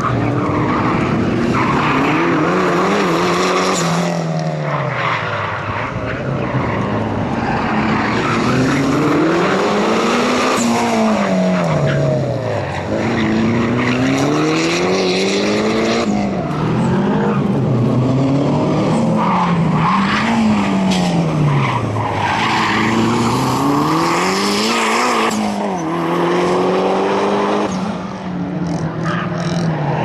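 Mitsubishi Lancer Evo V rally car's turbocharged four-cylinder engine revving hard and dropping back again and again, every few seconds, as it accelerates and brakes through tight corners, with tyres squealing in the turns.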